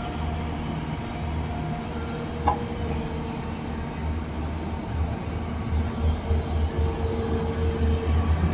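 Hyundai crawler excavator's diesel engine running under digging load, with a deep pulsing rumble and a steady whine; a single sharp knock about two and a half seconds in.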